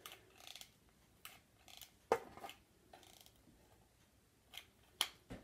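Faint clicks and light taps of a mini hot glue gun being worked against a foam-filled metal tin while glue is laid down, with two sharper clicks about two seconds in and near the end.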